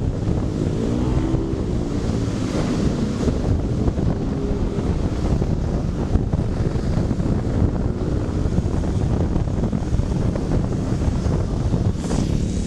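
Wind buffeting the microphone on a moving motorcycle, a CFMoto NK400, with a steady rush of noise. The engine's note wavers faintly under the wind in the first few seconds.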